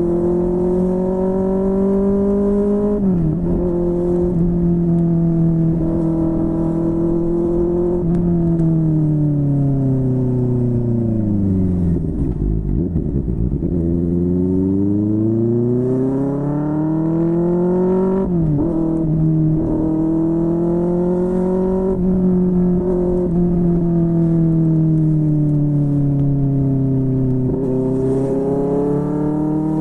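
QJMotor SRK600 inline-four motorcycle engine through a Yoshimura R11 exhaust, ridden at steady revs. The revs drop sharply with a gear change about three seconds in and again a little past halfway. In the middle the revs fall away to near idle and then climb back up.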